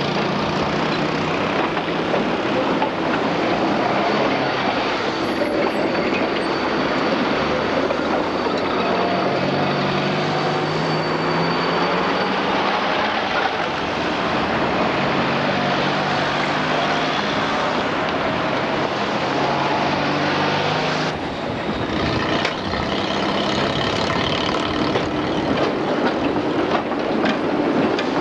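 Trams running along street tracks among passing road traffic: a steady rumble of wheels and vehicles that changes suddenly about three-quarters of the way through.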